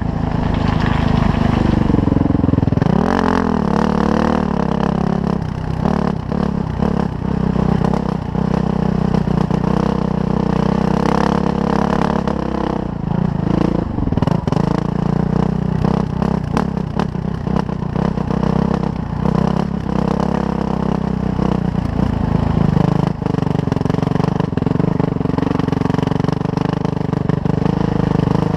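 Suzuki RM-Z450 dirt bike's single-cylinder four-stroke engine running under load while ridden, its pitch rising and falling with the throttle. Knocks and clatter run throughout.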